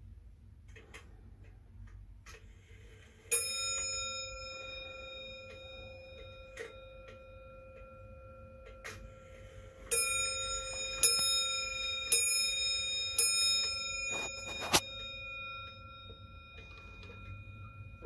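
Comtoise-style 8-day wall clock striking on its bell: a single strike about three seconds in, then four strikes about a second apart, each note ringing on. A sharp knock comes just after the last strike, and faint ticking runs underneath.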